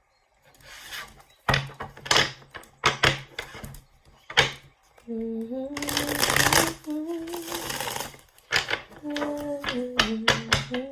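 A woman humming a slow tune in held, sliding notes, over sharp clicks and rustling from shuffled tarot cards; the clicks come first and the humming starts about halfway through.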